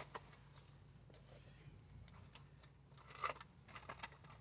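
Near silence: room tone with a few faint clicks and a soft rustle about three seconds in.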